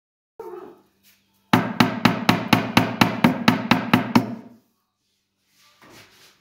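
Hammer blows, about a dozen quick, even strikes at roughly four a second, after a single short knock.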